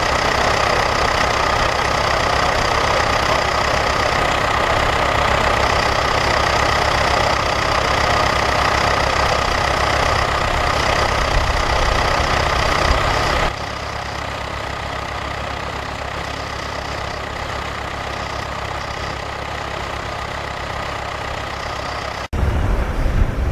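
Tractor engine running steadily, a low rumble with a constant high whine over it. The sound drops abruptly to a quieter level about halfway through and comes back loud near the end.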